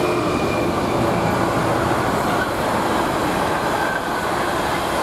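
Intermodal container freight train passing close by, behind a Freightliner Class 66 diesel locomotive: the steady noise of the container wagons' wheels running over the rails.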